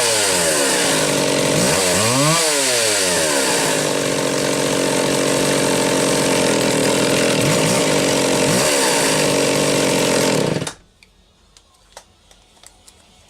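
McCulloch Timber Bear two-stroke chainsaw running on a test run after its carburetor was cleaned and its fuel hose replaced, its pitch rising and falling a few times as it is revved. It cuts off suddenly about eleven seconds in, leaving only a few faint clicks.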